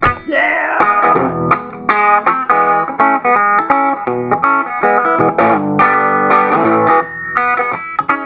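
Electric guitar playing a boogie-blues tune. A note bends upward at the start, then come busy, rhythmic chords and licks.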